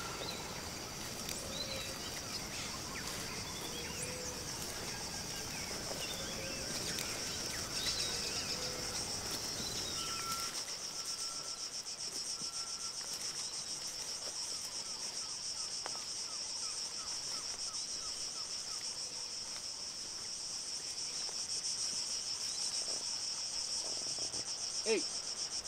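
Steady, finely pulsing high chorus of insects, with a few bird chirps in the first half. A low background rumble drops away about ten seconds in, and a single short snap sounds near the end.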